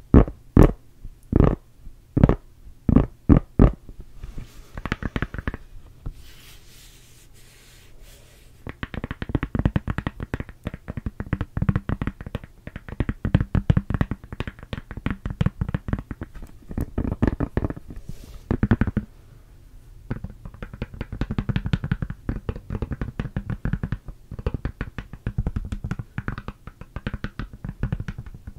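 Long fingernails tapping on a smartphone in a silicone case, held right up to the microphone. A few separate knocks come first, then after a quieter stretch fast continuous tapping and scratching, with a short pause about two-thirds through.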